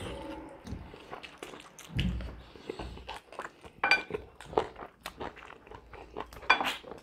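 People eating roast chicken with their hands: chewing and biting meat and skin, with irregular wet mouth smacks and short crunchy clicks.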